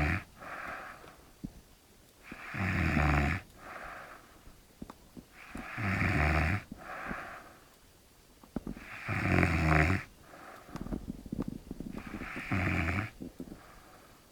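A man snoring in deep sleep: four loud, rasping snores come about every three seconds, each followed by a softer breath out.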